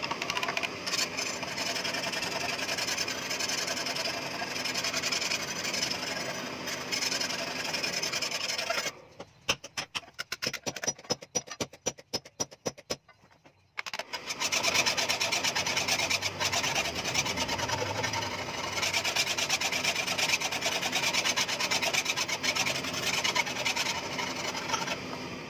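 A hand file rasps along a forged steel knife blade in rapid back-and-forth strokes, filing the blade. A little over a third of the way through, the filing stops for about five seconds, leaving only scattered light knocks, then starts again.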